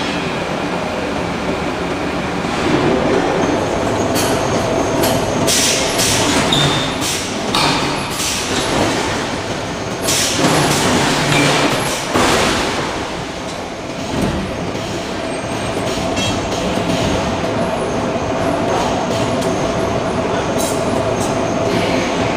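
Forge shop machinery running with a steady hum, and a run of irregular metallic clanks and blows in the middle.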